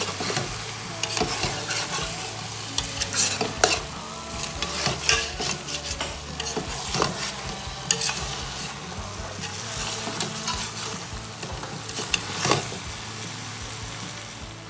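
Metal spatula stirring chicken and potato pieces in a stainless steel pot while the masala sizzles, with irregular scrapes and clicks of the spatula against the pot over a steady sizzle.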